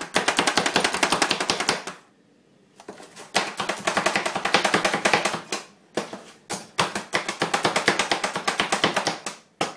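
Pampered Chef food chopper's plunger pumped rapidly, making a fast run of clacks, about eight a second, as its turning blades dice red onion. The clacking comes in three runs with short pauses between.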